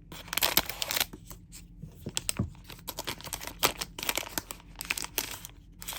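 A plastic trading-card hanger pack wrapper being torn open and crinkled, in a run of uneven rips and rustles.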